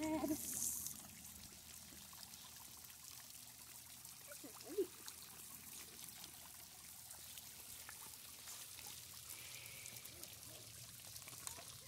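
Faint steady trickle of water running into a pond, with a brief rustle of a plastic bag just after the start and a short blip about five seconds in.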